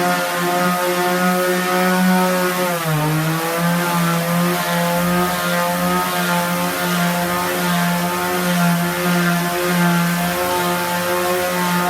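Electric power sander running steadily with a high, even motor hum; its pitch sags briefly about three seconds in, then comes back up.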